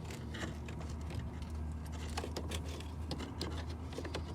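Irregular light clicks and rattles of wires and plastic connectors being handled and moved around in a truck's wiring harness, over a steady low hum.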